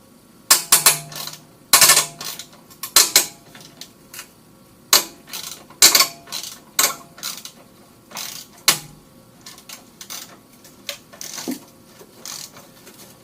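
Hand tools clicking and clanking on metal as exhaust clamps are loosened, in irregular sharp knocks, some with a short metallic ring.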